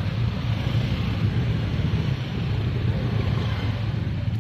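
Motor scooter engines running in slow, crowded street traffic: a steady low rumble.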